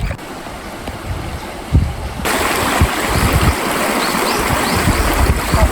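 River water flowing, an even rushing that gets much louder about two seconds in.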